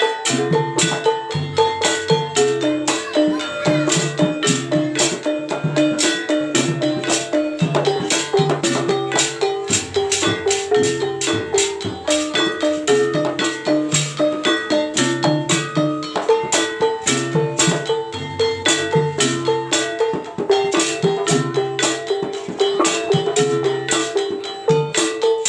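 Javanese traditional instrumental music: an ensemble of drums, shakers and pitched metal percussion playing a fast, steady beat.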